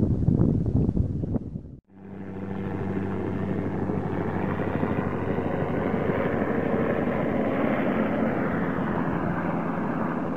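Small helicopter flying low, its rotor and engine running steadily with a low hum. The sound breaks off about two seconds in and resumes at an even level.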